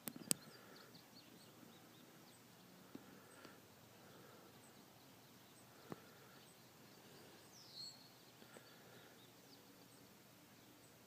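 Near silence: faint open-air ambience with a few faint chirps and a couple of soft clicks, between rifle shots.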